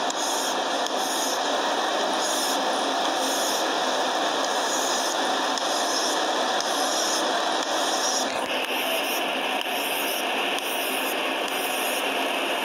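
Steady hiss of background noise, with a slight change in its tone about eight seconds in.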